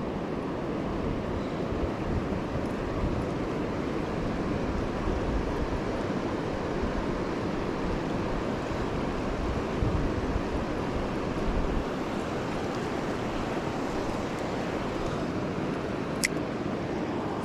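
Steady rush of the Gunnison River's fast-flowing water, with a single sharp click near the end.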